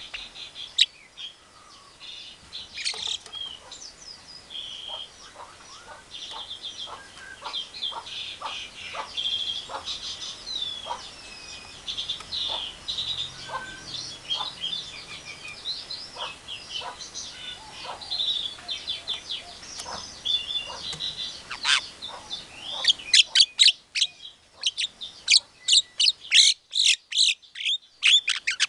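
Javan myna chattering: a long run of varied chirps, squeaky whistles and short clicks. About five seconds before the end it breaks into a fast series of loud, sharp notes, about three a second.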